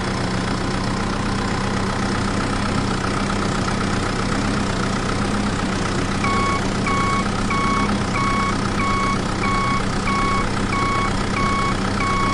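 A vehicle engine running steadily at idle. About six seconds in, a reversing alarm starts beeping, roughly one and a half beeps a second, over the engine.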